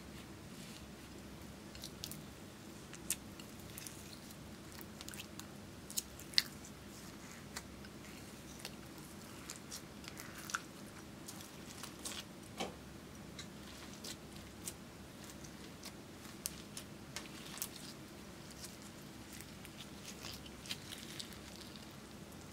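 Slime with sequins and glitter mixed in being kneaded, pressed and stretched by hand, giving irregular sticky clicks and crackles. A faint steady low hum runs underneath.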